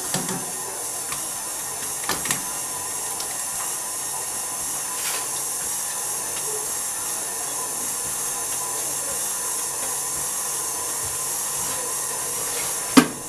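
Sugar syrup boiling at about 105 °C hisses steadily as fresh strawberries are tipped in from a stainless-steel bowl, with a few light scrapes of a spatula against the bowl and a knock near the end.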